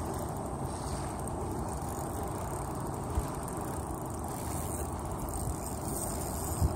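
Wind buffeting the microphone: a steady low rumbling noise, with a brief thump about three seconds in.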